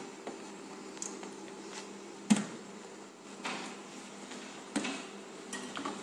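Several knocks and clatters of a plastic water bottle being handled against a drinking-fountain bottle-filling station, the loudest about two and a half seconds in, over a steady low hum.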